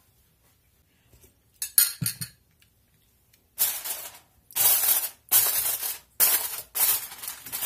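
Aluminium foil crinkling as hands press and crimp a sheet of it over a glass bowl, in five loud rustling bursts from a little past halfway. A short crackle with a clink comes about two seconds in.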